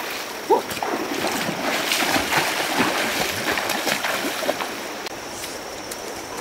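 Water splashing in a shallow stream: an iron axe slapped down into the water, then people wading and running quickly through shin-deep water.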